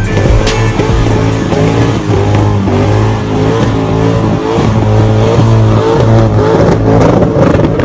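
Car doing a burnout: the engine is revved hard, its pitch rising and falling over and over, while the tires spin.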